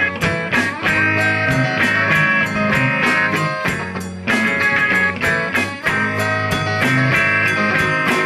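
A band playing live, a guitar riff to the fore over regular percussive hits.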